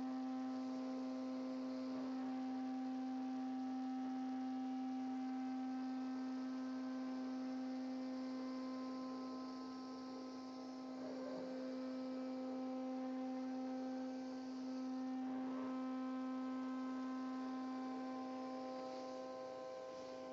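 CNC router running: a steady electric hum with several higher tones above it, which change briefly three times as the machine's motion shifts.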